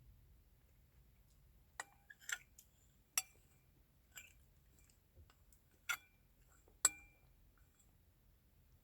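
Eating utensils clinking against dishes, about six short sharp clinks at irregular intervals, a few with a brief ringing note.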